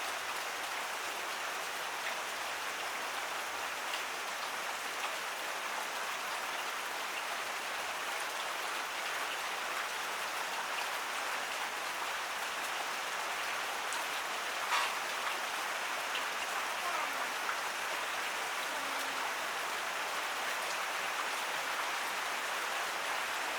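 Heavy rain falling steadily, an even hiss with a few louder single drips standing out, the clearest about fifteen seconds in.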